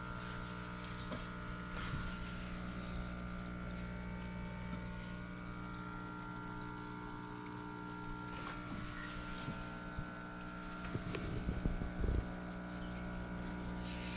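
Steady electric hum of a pump, with water pouring and bubbling in the fish tub. A few low knocks come near the end.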